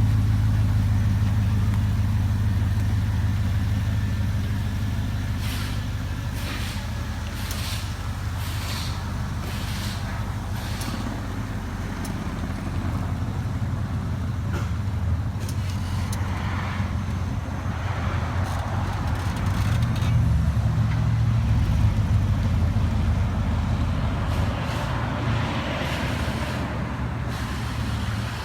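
2008 BMW 750Li's 4.8-litre V8 running steadily through a custom dual 2.5-inch exhaust with SLP Loudmouth resonators: a constant low exhaust drone that swells slightly about two-thirds of the way through. Several brief clicks sound between about five and eleven seconds in.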